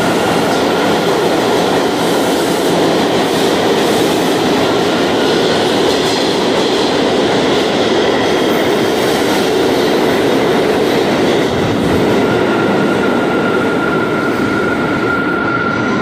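R179 subway train moving along the platform in an underground station: a loud, steady rumble and clatter of wheels on rail, with a high motor whine that holds a steady pitch.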